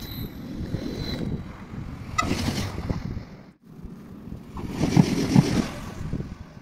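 Trains running through a station, a low rumble heavily mixed with wind noise on the microphone. The sound cuts out suddenly about three and a half seconds in, then swells again as another train approaches.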